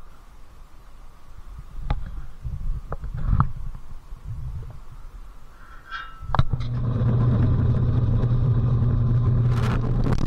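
A few light knocks and clicks as steel plate pieces are handled. About six seconds in, a drill press starts and runs with a steady, loud hum, its step drill bit boring holes in 1/4-inch steel plate for spring hangers.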